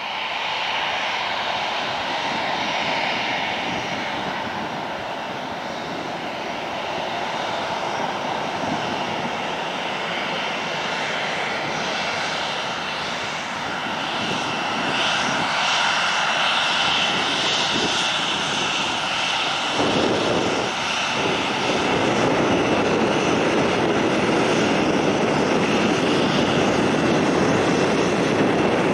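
Boeing 737-700's CFM56-7B turbofan engines running at taxi power with a steady high whine over a jet rush as the airliner taxis. The sound grows louder and fuller in the last third as the jet comes close.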